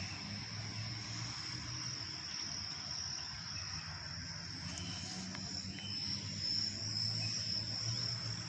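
Insects singing in a steady, high-pitched drone from the park's trees, a little louder in the second half, over a low background rumble.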